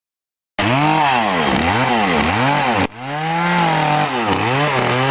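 Two-stroke chainsaw carving wood, its engine revving up and down in quick repeated swells, then held at higher speed with a few brief drops after a sudden break about three seconds in.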